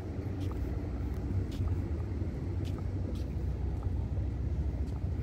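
Low, unsteady outdoor rumble, with a few faint light ticks scattered through it.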